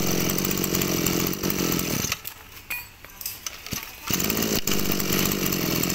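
Komatsu Zenoah BC2600 brush cutter's 26cc two-stroke engine revving. It falls back toward idle for about two seconds in the middle, then revs up again. It is running on a freshly fitted spark plug, put in because the old worn plug was misfiring.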